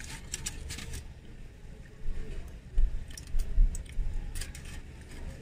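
Knife and fork cutting a grilled burger on its aluminium-foil wrapper: scattered clicks, scrapes and foil crinkles in two clusters, with a few dull thumps in the middle.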